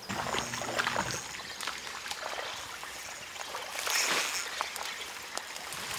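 Small river's current running and trickling, with a few light clicks and rustles.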